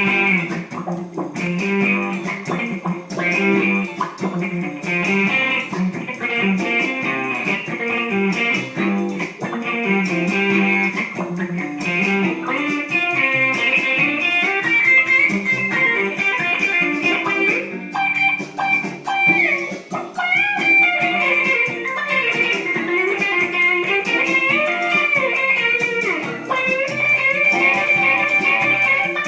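Blues played on electric guitar: a repeating riff over low notes, then from about halfway a lead line of held high notes with bends that glide up and down.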